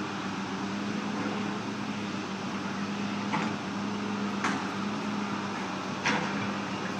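Heavy equipment engine running steadily at an even pitch, with three sharp clanks of metal or debris in the middle and near the end.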